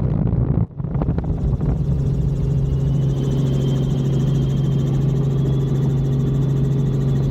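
Tour helicopter's engine and rotors running, a steady low drone with a faint high whine over it, after a brief dip about a second in.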